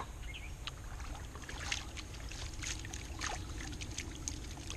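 Water and gravel sloshing in a Garrett Super Sluice gold pan as it is shaken and swirled, with irregular small clicks of stones knocking in the pan.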